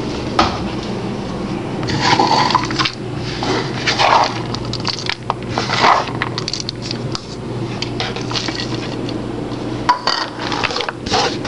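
Chopped walnuts tipped from a small bowl into a plastic mixing bowl of muffin batter and stirred in with a spatula: irregular clatters, clinks and scrapes of the bowls and spatula, the loudest about 2, 4 and 6 seconds in, over a steady low hum.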